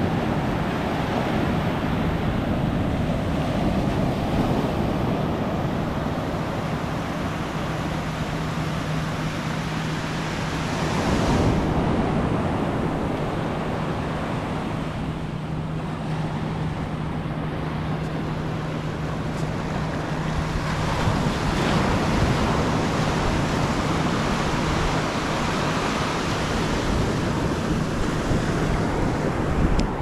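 Ocean surf breaking and washing up a sandy beach in a continuous rush, with louder surges as bigger waves come in, about eleven and twenty-two seconds in.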